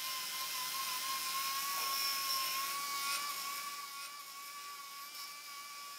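A steady, high-pitched mechanical whine holding one pitch over a faint hiss, a little louder in the first half and easing slightly after about four seconds.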